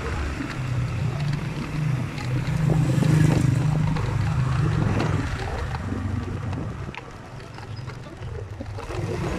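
A motor vehicle's engine running along a road, swelling to its loudest about three seconds in as an oncoming vehicle passes close, then fading.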